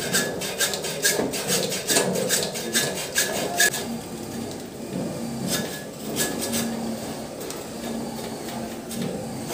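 Hand-tool scraping or rasping in quick repeated strokes, about four a second, pausing after about four seconds and coming back briefly a little later. This is hand work on the cable during the connector installation.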